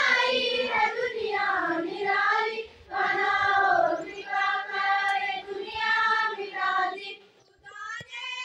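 A large group of schoolgirls singing an assembly song together in unison, in held phrases with short pauses between them. The singing drops away about seven seconds in and comes back softer near the end.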